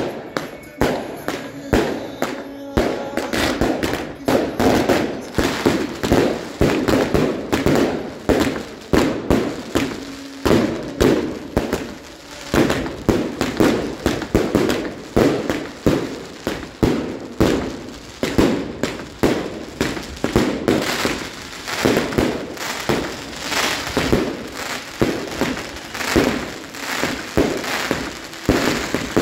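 Fireworks going off: a rapid, unbroken string of bangs and crackling from aerial bursts and a fountain of sparks, several reports a second.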